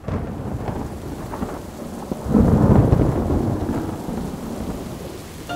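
Steady rain with a roll of thunder that swells about two seconds in and slowly dies away.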